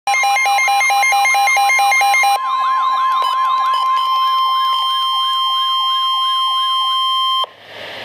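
Midland weather radio sounding its alert for a severe thunderstorm warning. A rapid pulsing beep pattern lasts about two seconds, then a warbling siren plays over a steady high tone. The alarm cuts off abruptly about seven and a half seconds in, leaving radio hiss.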